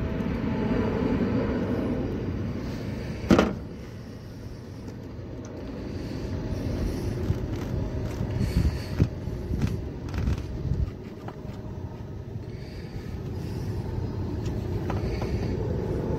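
A greased plastic wire plug is pressed onto a condenser fan motor connector by hand, seating with one sharp click about three seconds in, followed by scattered handling knocks, over a steady low rumble.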